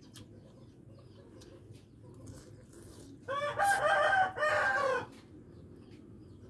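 A rooster crowing once, about three seconds in: a loud, pitched crow of just under two seconds in three joined parts, the last note falling away. A low, steady background noise sits underneath.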